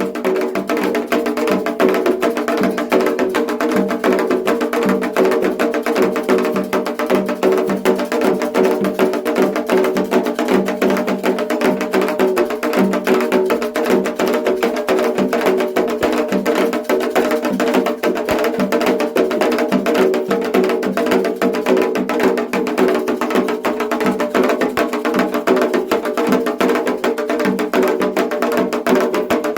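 Candomblé ritual percussion for Xangô: atabaque drums with a hard, clicking beat, playing a fast, unbroken rhythm.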